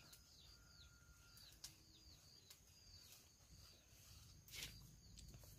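Near silence with faint, short downward bird chirps repeating every half second or so, and a brief rustle about four and a half seconds in.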